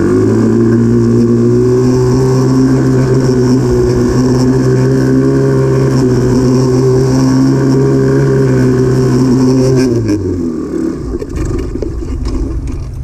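TaoTao 125 ATV's single-cylinder four-stroke engine revving up and held at steady high revs while the quad circles. About ten seconds in, the revs fall away and the engine note drops.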